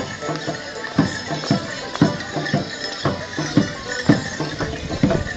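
Live folk band playing a Morris dance tune, with held tones from the band under a drum that beats about twice a second.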